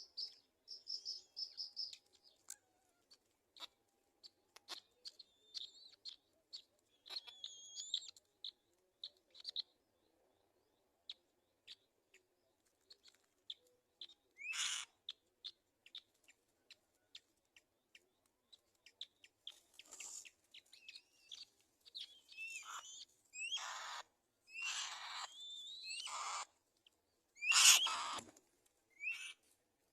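Black-winged kites calling at the nest: faint high chirps through the first ten seconds, then from about fourteen seconds in a run of louder harsh, raspy screeches, each half a second to a second long, the loudest near the end.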